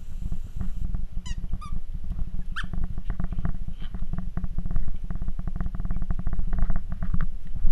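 A Pembroke Welsh corgi puppy's claws clicking and paws pattering on a hardwood floor as it scampers about. There are a few short high squeaks a little over a second in and another at about two and a half seconds.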